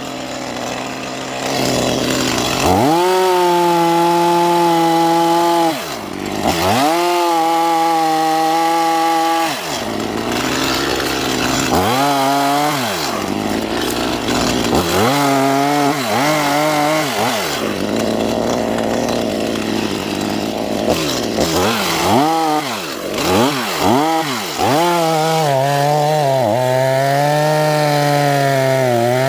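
Stihl two-stroke chainsaw cutting wood, revving up to full throttle and holding there for a few seconds at a time, then dropping back between cuts. About three-quarters of the way through there are several quick revs before a long full-throttle run.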